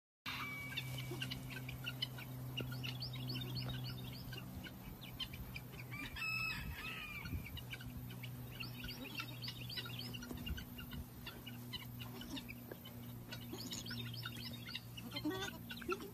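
Many rapid, high-pitched peeping and squeaking calls from young animals, in clusters, with one longer call about six seconds in, over a steady low hum.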